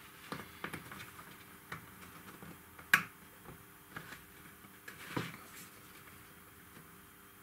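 Small model parts clicking and tapping as they are handled and fitted together by hand, with one sharper click about three seconds in.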